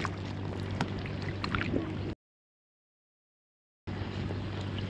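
Small boat's motor running with a steady low hum, with water splashing and lapping against an inflatable hull. About two seconds in, the sound cuts out to dead silence for nearly two seconds, then comes back.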